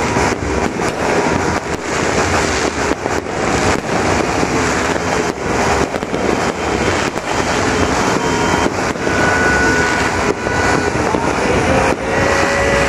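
Fireworks going off in a dense barrage: many bangs and crackles overlapping with no pause.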